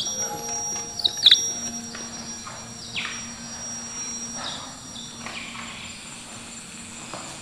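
Insects chirping, with a thin, steady high-pitched trill that stops a little after five seconds in, and a few short high chirps about a second in.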